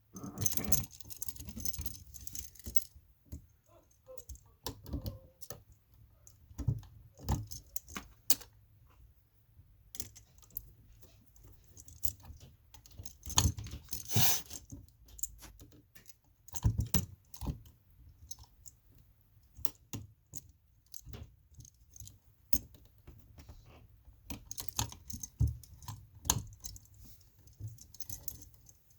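Irregular clicks and small metallic clinks of hand tools, needle-nose pliers and a screwdriver, working a neutral wire around the terminal screw of an electrical outlet.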